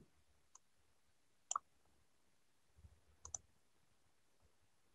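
Computer mouse clicks in near silence: a faint click about half a second in, another at about a second and a half, and a quick double click a little past three seconds.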